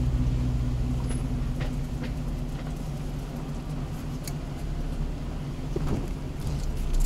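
Jeep Wrangler JK with manual transmission crawling slowly over a rocky dirt trail, heard from inside the cabin: steady low engine and drivetrain rumble with a few sharp knocks and rattles, more of them near the end.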